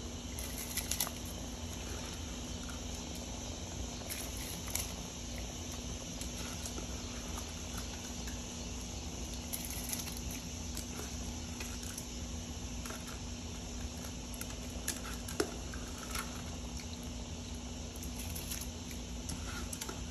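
A pot of water at a rolling boil, bubbling steadily, while handfuls of drained soaked rice are dropped into it with soft pattering splashes and a few light clicks. A steady low hum runs underneath.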